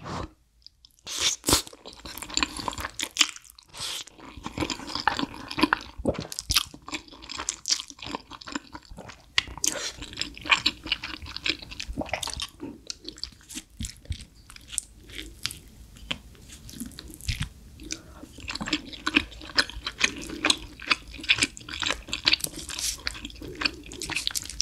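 Close-miked chewing of thick, saucy oven-baked spaghetti, with many short wet mouth clicks.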